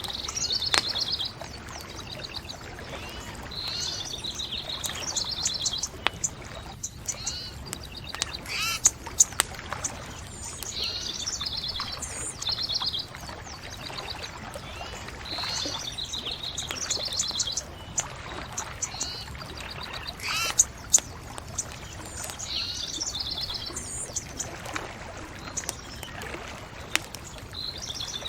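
A songbird singing short trilled phrases, repeated every three to four seconds, over a steady background hiss, with a few sharp cracks from a bonfire.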